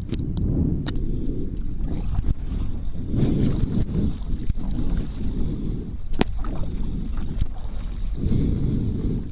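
Kayak on the water: low rushing and sloshing of water from the paddling, swelling every few seconds, with a few sharp knocks, the clearest about six seconds in.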